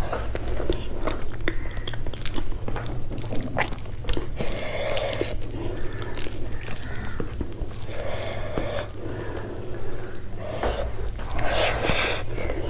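Close-miked chewing of a mouthful of rice and curry, with many short wet mouth clicks and smacks and a few longer breathy stretches, over a steady low hum.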